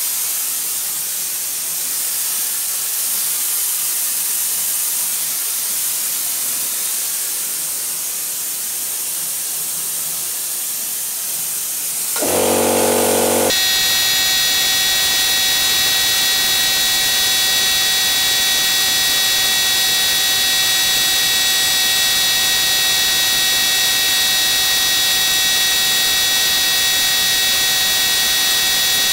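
Air spray gun hissing steadily as it sprays paint. About twelve seconds in a short buzz sounds, and after it a steady whine of several tones runs on under the hiss, a little louder.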